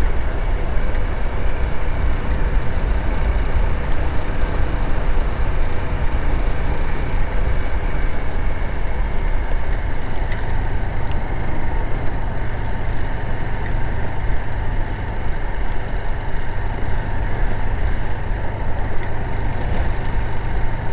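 Motorcycle riding steadily on a dirt road: an even engine drone and tyre noise under a heavy low rumble of wind on the microphone.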